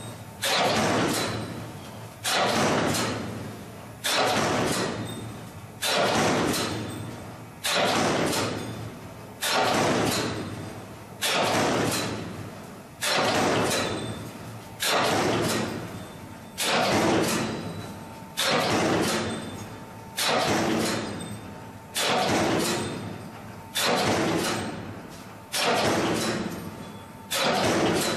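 CNC punch press punching holes in steel sheet: a sharp metallic hit about every two seconds, each ringing out and fading before the next.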